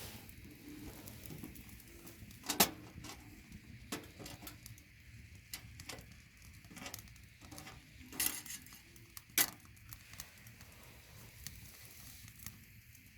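Scattered clinks and knocks of cookware and utensils being handled, a few sharper ones about two and a half seconds in and twice near eight to nine and a half seconds, over a faint steady hiss of food cooking on the stove.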